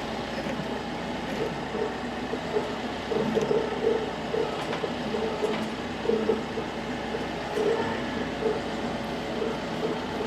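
Tractor engine running steadily, its note swelling now and then as the tree-pulling attachment is worked on its hydraulics.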